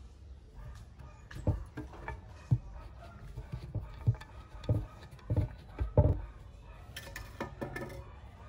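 Kitchen knife chopping into a whole santol (sấu) fruit on a stone surface: a series of irregular knocks as the blade strikes the fruit and the stone beneath, with lighter clicks near the end.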